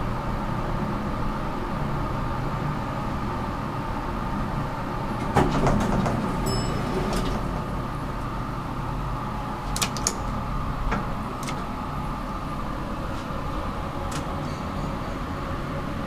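Otis traction elevator car with its steady running hum. About five and a half seconds in, the car doors slide open with a short chime. A few sharp clicks from the touch buttons follow around ten to eleven seconds.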